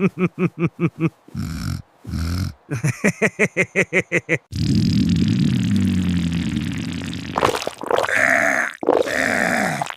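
Cartoon character vocalisations: two rapid runs of short pitched vocal syllables, about six a second, then a long low grunting growl starting about four and a half seconds in, and more voiced sounds near the end.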